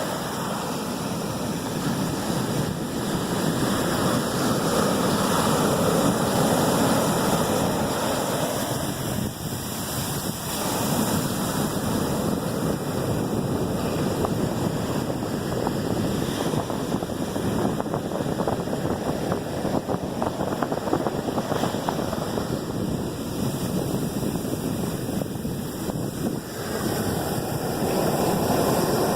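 Ocean surf breaking on a beach: a steady rushing wash of waves that swells and eases as sets come in.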